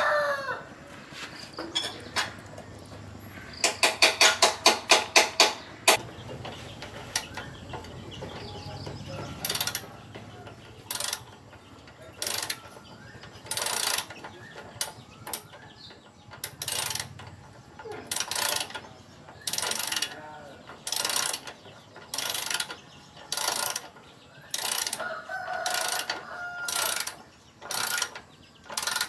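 Hand ratchet wrench clicking on a motorcycle's rear bolt: a quick run of clicks about four seconds in, then short bursts of clicking about once a second, one for each back-stroke of the handle. A rooster crows briefly near the end.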